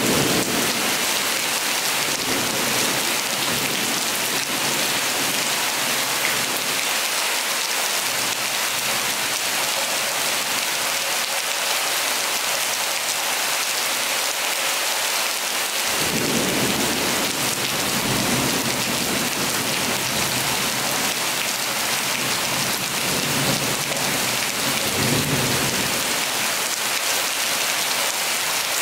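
Heavy rain pouring steadily. About halfway through, a low rolling rumble of thunder sets in and lasts about ten seconds.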